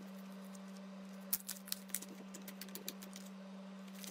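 Thick slime being stretched, folded and squeezed by hand, giving small sticky clicks and pops, most of them in a cluster about a second and a half in. A steady low hum runs underneath.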